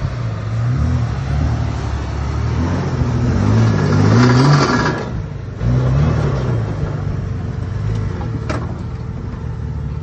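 Off-road vehicle's engine revving up and down as the vehicle crawls over trail obstacles, loudest about four to five seconds in and easing off briefly just after.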